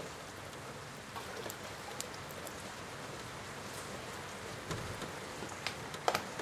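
Steady rain falling on a wet wooden deck, with a few light knocks and clatters as rain-catching buckets are handled.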